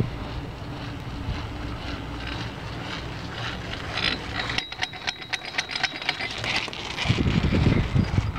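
Chair grip of a 1974 Marchisio double chairlift rolling through the tower's CCM sheave train: a rapid, even run of metallic clicks, about seven a second, for about two seconds in the middle, with a thin whine. Wind on the microphone throughout, gusting loudest near the end.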